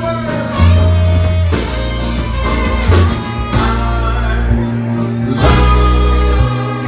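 Live band playing a song: electric bass holding low notes under a drum kit's beat and strummed acoustic guitar.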